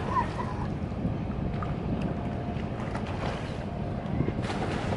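Steady low rumble of a boat engine running on the river, with wind buffeting the microphone.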